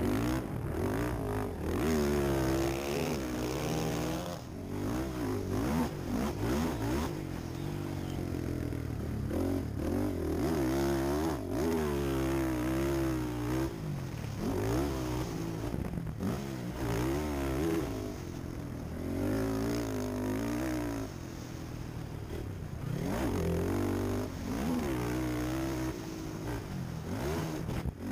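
Quad (ATV) engine revving up and dropping back over and over as it is ridden around a dirt motocross track, its pitch rising and falling every few seconds.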